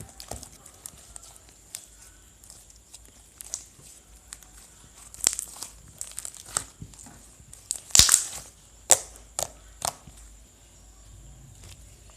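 Slime mixed with homemade Japanese clay being squeezed and pressed by hand, giving irregular clicky pops and crackles. The loudest pops come in a cluster about eight to nine and a half seconds in.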